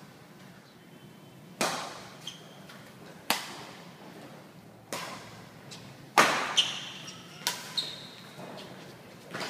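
Badminton rackets hitting a shuttlecock several times, sharp smacks that echo in the hall and come quicker in the second half, with brief squeaks of court shoes on the floor.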